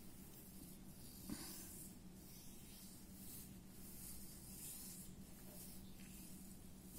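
Near silence: faint room tone with a low steady hum and soft scratching of a ballpoint pen on paper.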